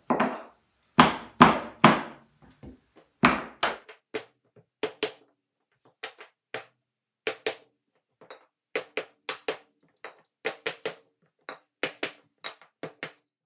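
Mallet striking a wooden tapping block against the edge of laminate planks: a few heavy knocks, then lighter, quicker taps in pairs and threes. The planks are being knocked into place while weight presses them down, so that the raised, bowing edge of the last row locks in and lies flat.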